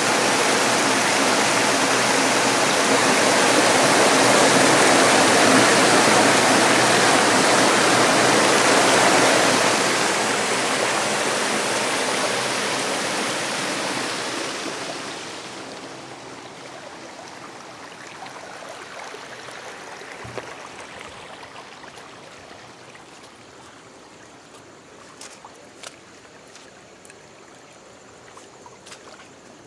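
Heavy storm runoff rushing and splashing down through the grate of a deep street storm drain that is filled about halfway. It is loud at first and fades about halfway through, leaving a fainter sound of running water with a few light taps near the end.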